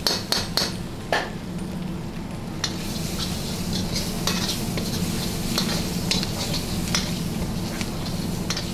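Chicken fry sizzling in oil in a kadai while a metal ladle stirs it, scraping and clinking against the pan many times at irregular intervals.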